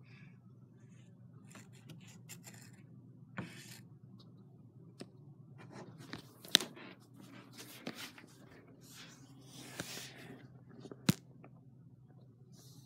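Handling noise of a phone camera being moved about: scattered rubbing and scraping with a few sharp clicks, the loudest a little past halfway and another near the end, over a faint steady low hum.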